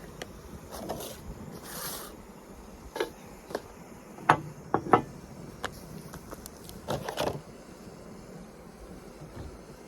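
Several sharp knocks and clicks of objects being handled, the loudest a pair about four to five seconds in, with a short hiss about two seconds in over a quiet steady background.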